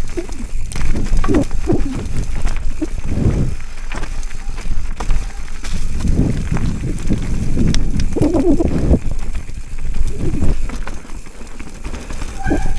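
Giant Trance full-suspension mountain bike descending a rough enduro trail: heavy wind rumble on the microphone over the uneven noise of tyres on dirt and roots, with knocks and rattles from the bike.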